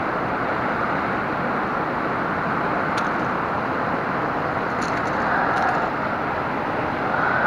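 Steady rush of a fast-flowing river over rocks, with a few faint clicks about three and five seconds in.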